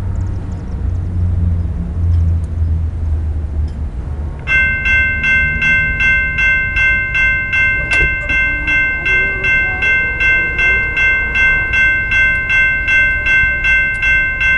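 A low rumble, then about four and a half seconds in a railroad crossing warning bell starts ringing steadily at a little over two strikes a second, the signal that a train is approaching.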